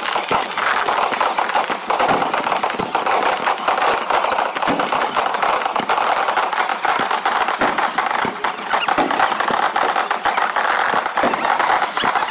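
Aerial fireworks bursting in a dense barrage: many rapid bangs and crackles overlapping with no break.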